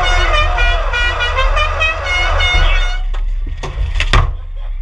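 Car horn honking in a quick run of short toots over a steady low vehicle rumble, followed near the end by a few sharp knocks.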